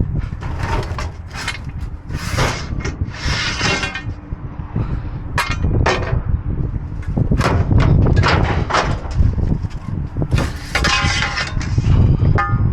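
Scrap metal and other junk in a dumpster clanking, knocking and scraping as pieces are pulled out and shifted, with many irregular sharp knocks and rattles.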